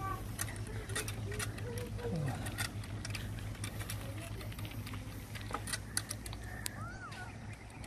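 Folding bike rattling and clicking as it rolls over a rough dirt track, with a steady low hum underneath. A few short pitched calls sound near the start and once more near the end.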